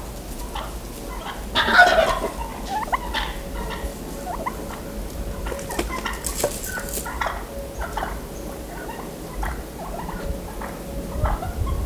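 A Merriam's wild turkey gobbler gobbles loudly once about two seconds in, followed by scattered light clicks and rustling as the toms strut.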